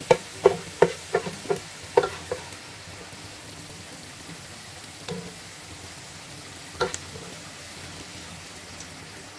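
Golden-fried onions being lifted out of hot ghee with a spoon: a quick run of about seven knocks and clinks against the pan in the first two and a half seconds, then the ghee sizzling softly, with two more single knocks later.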